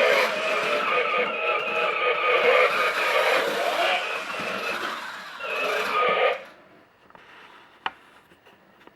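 Electronic vehicle sound effect played from the U Command BatPod toy's built-in speaker, with held tones and wobbling lower notes, cutting off about six seconds in. A single sharp click follows near the end.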